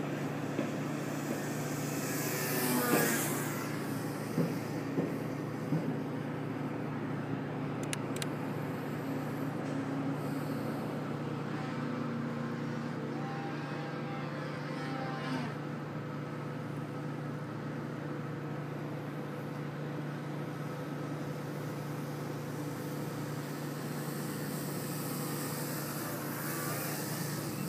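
Electric RC aerobatic plane's brushless motor and 13x7 propeller buzzing steadily in flight, swelling to a louder rush as the plane passes close about three seconds in and again near the end as it hovers low.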